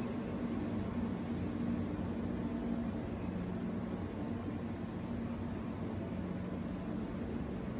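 Steady machinery hum with a low tone that steps down in pitch and back up again twice.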